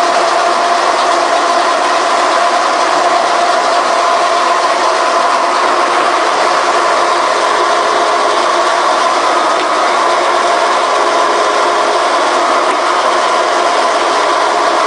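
Sound insulation plate punching machine running steadily: a loud, continuous mechanical din with a steady hum, as its rollers feed the perforated plate.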